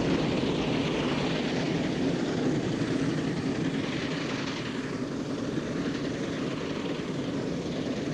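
Steam traction engine working, hauling a heavy-haulage load: a steady, dense mechanical running noise that jumps up sharply right at the start.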